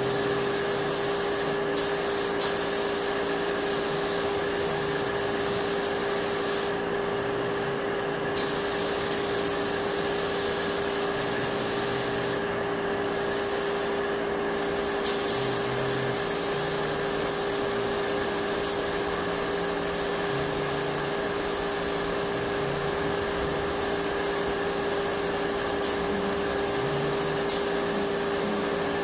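Gravity-feed paint spray gun hissing steadily as paint is laid on a car body, the hiss stopping briefly a few times between about 7 and 14 seconds in between passes. A steady hum runs underneath, and a few sharp clicks stand out.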